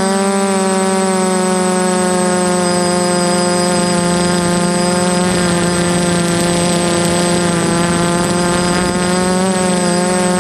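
DJI F330 quadcopter's four brushless motors and propellers buzzing steadily in flight, heard up close from the camera mounted on the frame, with a thin high whine above. The pitch wavers slightly with throttle changes near the start and near the end.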